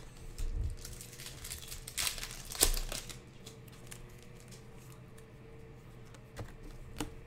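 Cellophane wrapper of a Panini Prizm basketball cello pack crinkling and tearing as it is pulled open, with sharp crackles in the first three seconds, the loudest about two and a half seconds in, then a few fainter ticks of handling. A faint steady hum lies underneath.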